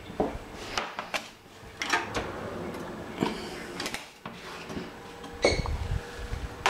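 Light knocks and clicks of a metal pizza pan being handled, then a sharp knock about five seconds in as the built-in oven door is pulled open, followed by a low rattle.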